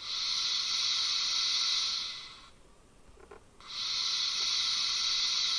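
Simulated sanding sound from the ESU LokSound 5L sound decoder of a 1:32 gauge 1 E 71 electric locomotive model: a hiss of air-blown sand lasting about two and a half seconds, fading in and out, then after a short gap a second hiss that runs on.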